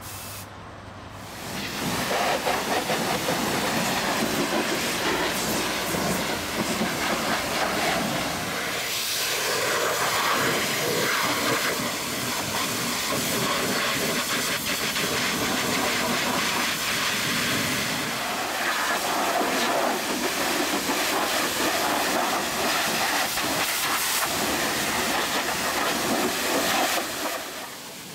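High-pressure jet wash spraying water against a truck's wheel and engine bay: a loud, steady hiss of spray that starts about a second and a half in, shifts in texture as the jet moves, and cuts off near the end.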